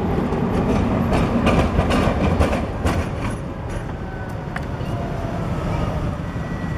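Electric tram rolling past close by: a low rumble with rapid clicking and clattering of steel wheels on the rails, strongest over the first three seconds, then dying down. After that comes a quieter rumble with a few faint thin whining tones as a second tram approaches.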